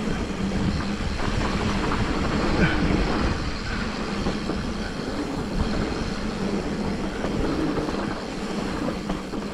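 A mountain bike riding a rough dirt trail: a steady rush of wind on the action camera's microphone, over the rattle and rumble of the bike and its tyres on the rocky ground.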